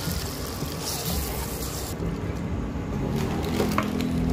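Raw chicken pieces frying in butter in a stainless steel pan, a sizzling hiss that stops abruptly about halfway. A low hum follows, with a few sharp clicks near the end as more chicken goes into the pan.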